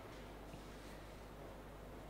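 Quiet room tone: a faint steady hiss with a low hum underneath.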